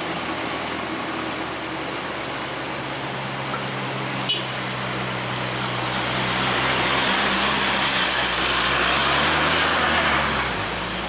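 Heavy truck engine running steadily with traffic noise. A vehicle passes close from about six seconds in, louder for four or five seconds before easing off, with a single brief click about four seconds in.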